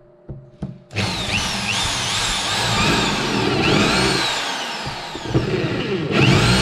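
Power drill boring into wood, its motor whine rising and sagging in pitch as the bit loads and frees up. It starts about a second in, stops for about a second near the five-second mark, and starts again near the end.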